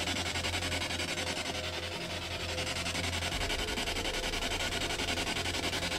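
SB7 spirit box sweeping through radio stations: a steady hiss of static chopped into a fast, even stutter of many pulses a second, with a low hum beneath.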